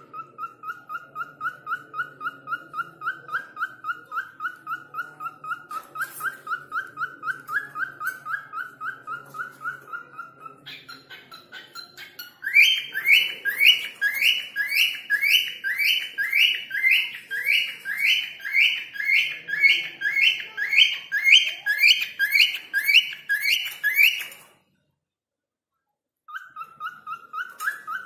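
A bird whistling a fast run of short, evenly repeated notes, about four a second. About ten seconds in the notes jump higher, and from about twelve seconds they come louder and slower, about two a second. They cut off suddenly and start again shortly before the end.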